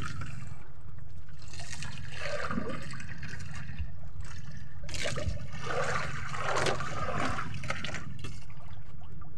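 Water sloshing and splashing against a small wooden outrigger boat's hull, in two rushing swells, the second about five seconds in and louder, over a steady low rumble.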